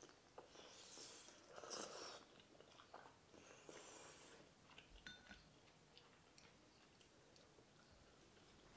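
Faint eating sounds of spicy rice cakes and wide glass noodles in sauce: a couple of hissy slurps in the first two seconds and another about four seconds in, then quiet chewing with small mouth clicks.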